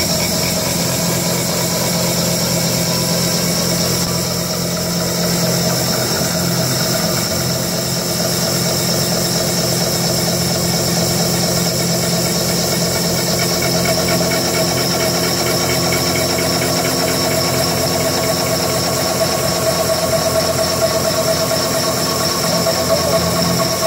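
Large CNC mill's 160 mm milling head cutting metal: a loud, steady machining noise with several constant tones.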